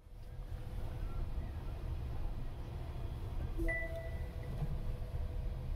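Steady low rumble of a car cabin, with a short electronic notification chime from the Waymo car's cabin speakers a little past halfway, a few clear tones that ring briefly and fade.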